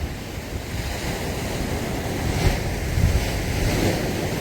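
Sea surf washing in, with wind buffeting the microphone: a steady rush with a couple of low surges around the middle.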